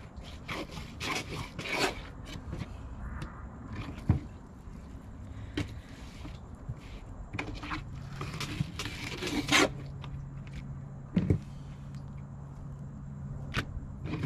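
Fillet knife cutting yellowtail fillet down to the skin and scraping along the skin on a plastic table, with sharp knocks and clicks of the blade and the fish against the tabletop. A low steady hum comes in about halfway through.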